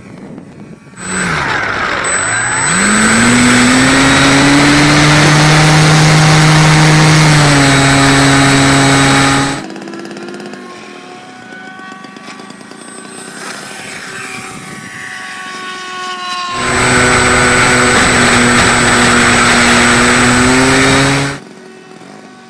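Radio-controlled model airplane's motor and propeller running hard close by, a loud buzzing drone that climbs in pitch as it throttles up. It cuts off suddenly about halfway, stays fainter for several seconds, then comes back loud before cutting off again near the end.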